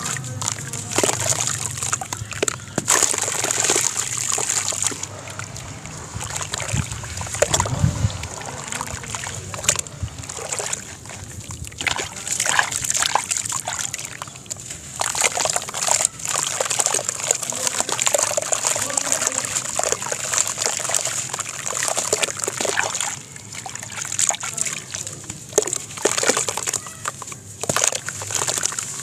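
Water sloshing and splashing irregularly in a plastic basin as hands rub, dip and crumble a soft sand-cement block in it.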